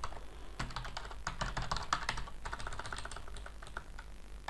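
Typing on a computer keyboard: a quick, uneven run of key clicks as text is entered.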